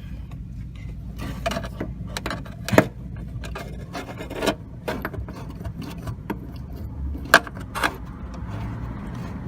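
Scattered light clicks, knocks and rubbing of small metal parts being handled while fitting a clutch cable end, with two sharper clicks about a third of the way in and near the end, over a steady low rumble.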